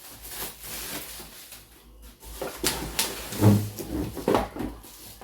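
Rustling, then a string of clicks and knocks from serving dishes being unpacked and handled, with one dull thump about three and a half seconds in.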